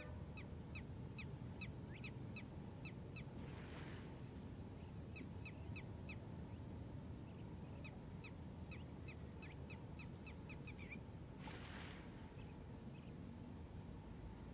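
A bird calling in runs of short, quick downward notes, several a second, over a low steady rumble, with two brief hissing whooshes about four and twelve seconds in.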